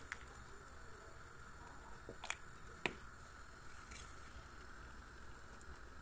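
Wooden spoon stirring spaghetti in tomato sauce in a pot: soft wet squishing, with a few sharp taps of the spoon against the pot.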